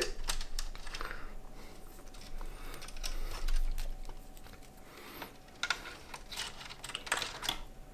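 Faint clicks and rustles of PC power-supply cables being pushed and tucked into a small-form-factor case, with a few sharper ticks near the end. A faint steady tone runs through the middle.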